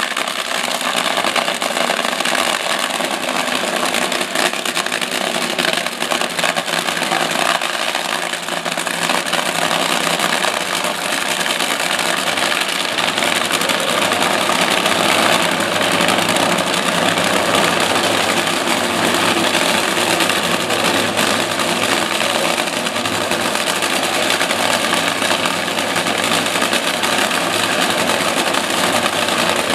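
Two drag-racing funny cars' supercharged V8 engines running steadily at idle, loud and continuous.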